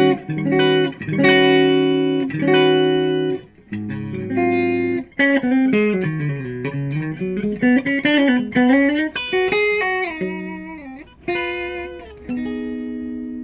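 Electric guitar, a Fender American Performer Stratocaster, played on its middle single-coil pickup with a very bright sound. It plays a few struck chords, then a lead phrase with string bends, and ends on held notes.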